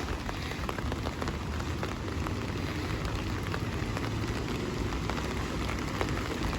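Steady rain falling, with scattered drops ticking close by over a low rumble.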